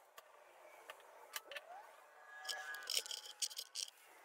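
Metal F-style bar clamps being handled and tightened: sharp clicks and rattles of the sliding jaws on the bars, with a few brief squeaks.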